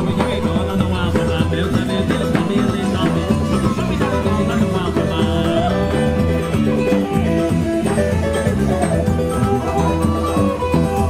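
Brazilian forró music from a live band, an instrumental stretch with no singing.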